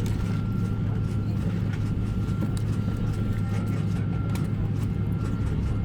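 Steady airliner cabin noise from inside the aircraft: a constant low drone from the engines and air systems with a faint high whine, and occasional light clicks and knocks.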